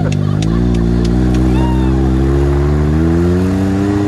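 Can-Am side-by-side engine pulling steadily under acceleration, its pitch climbing gradually. A few sharp ticks sound in the first second and a half.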